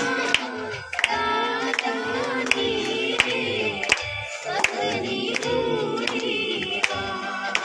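Aarti hymn sung by several voices together, with a steady beat of sharp strikes about every 0.7 seconds.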